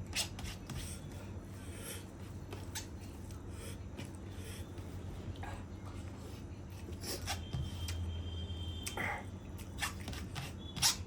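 Close-miked eating sounds of chicken curry and rice: chewing with scattered wet mouth clicks and smacks, the sharpest just before the end.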